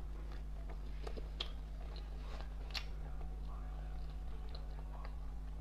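Close-up chewing of soft ice cream bread with a creamy filling: scattered small mouth clicks over a faint steady low hum.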